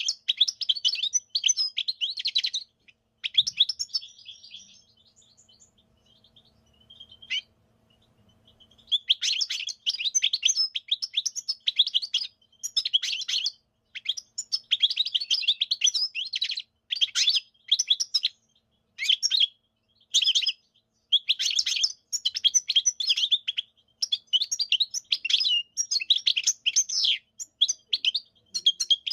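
European goldfinch singing: rapid, high-pitched twittering phrases of quick liquid notes. A few seconds in, the song pauses and a faint low hum is heard. It then resumes in bursts of a second or two separated by short gaps.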